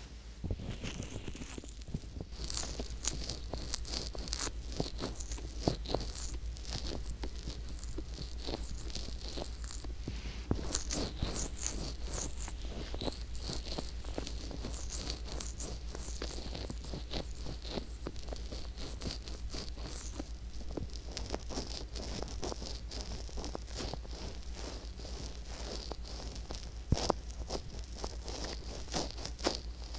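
Fingertips rubbing and pressing the silicone ear of a binaural ASMR microphone, heard as close, continuous crackly rustling and scraping with many small clicks.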